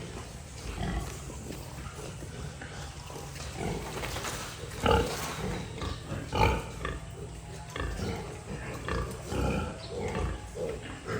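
Pigs grunting in a pen, scattered short calls over a steady low background, with two louder calls about 5 and 6.5 seconds in.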